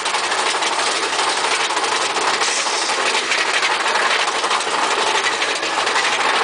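Mine-train roller coaster cars running along the track: a steady rumble and rattle mixed with rushing air on an open car.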